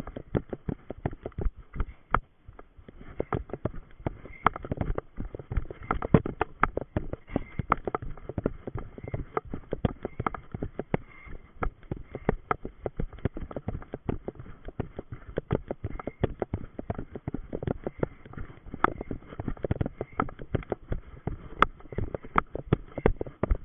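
Running footsteps of an orienteer on a dirt forest path, heard from a body-worn camera: a quick, steady run of thuds, one after another.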